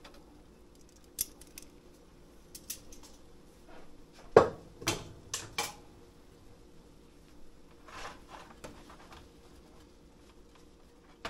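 Kitchen tongs clicking and clacking against a nonstick skillet as spaghetti is turned, with a sharp clack about four seconds in the loudest and several quicker clicks after it. Softer scraping follows as a spatula stirs food in a second frying pan.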